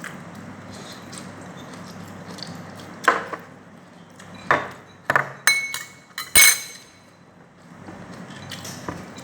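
Metal cutlery clinking against dishes while eating: a handful of sharp clinks from about three seconds in, the loudest ones ringing briefly. A steady low hum runs underneath.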